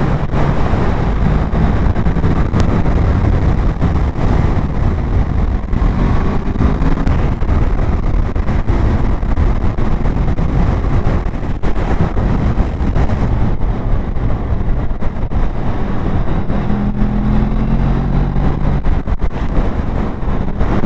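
Motorcycle engine running at road speed, mixed with steady wind and road rush.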